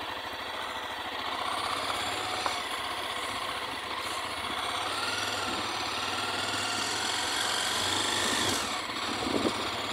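Honda Twister motorcycle's single-cylinder engine running at low speed on a rough dirt road. It builds gradually as the bike gathers speed, then drops off briefly near the end as the throttle eases.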